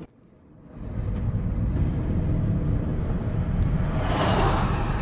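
Road and engine noise inside a moving car's cabin: a steady low rumble that comes in about a second in. About four seconds in, a louder rushing swell from a camouflaged Chevrolet pickup passing close alongside.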